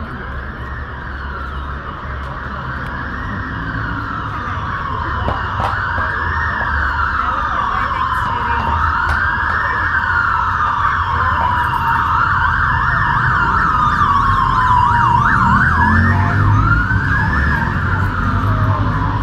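Emergency vehicle siren wailing in slow rising-and-falling cycles of about three seconds, growing steadily louder as it approaches. About three-quarters of the way through it briefly switches to a fast yelp, then goes back to the wail.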